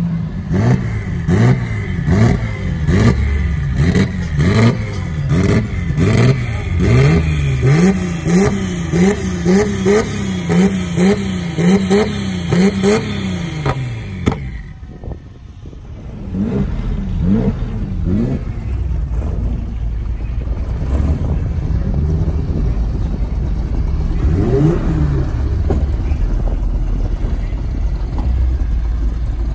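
A car engine revved over and over in quick throttle blips, about one and a half a second, with sharp exhaust cracks. About halfway through the revving stops. A lower, steady engine rumble follows, with a few shorter revs.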